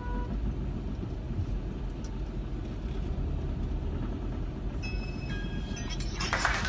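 Steady low rumble of a car cabin with the engine running. Near the end a few brief high tones and a short rush of noise come in.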